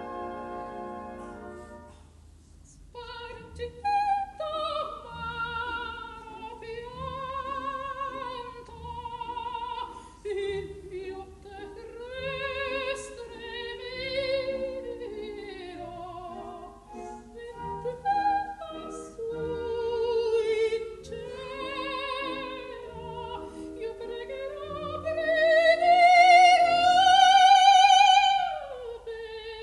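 Coloratura soprano singing an operatic mad-scene aria with a strong vibrato, accompanied by orchestra. A held orchestral chord breaks off about two seconds in; the voice enters a second later and climbs to a loud, long-held high note near the end before falling away.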